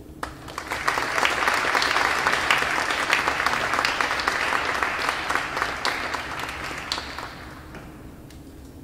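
Audience applauding: many hands clapping, swelling within the first second, holding steady and fading out about seven to eight seconds in.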